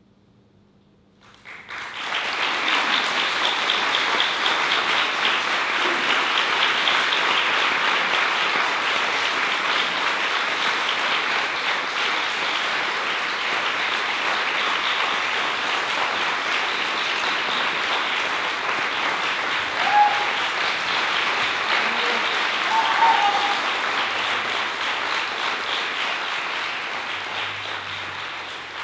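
Audience applauding, breaking out suddenly about a second and a half in and going on steadily, easing off near the end. A couple of short cheers rise above the clapping about two-thirds of the way through.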